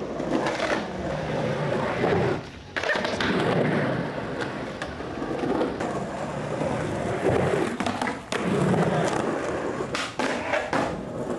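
Skateboard wheels rolling on rough pavement, with a few sharp clacks of the board's tail and wheels hitting the ground as the skater pops and lands tricks. The rolling briefly drops out twice.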